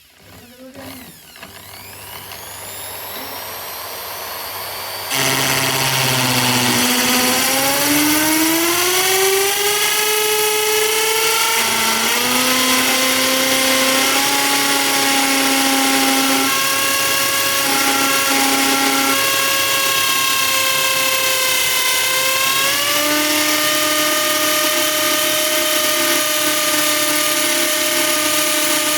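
A power drill spinning up, then, about five seconds in, a sudden jump to a loud, steady whine. Its pitch slides and steps several times as the spinning piece is pressed against the other to heat it by friction.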